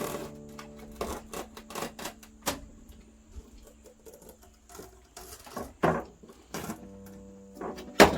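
Excess window screen mesh being trimmed with a box cutter: an irregular series of sharp clicks and scratchy cutting strokes, the loudest near the end, over faint background music.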